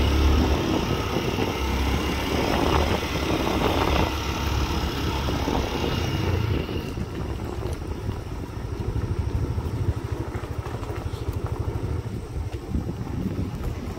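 Motorcycle engine running while riding, with wind and road noise on the microphone. About halfway through the hiss and rush fall away and the engine goes on at a lower, steady pulse as the bike slows.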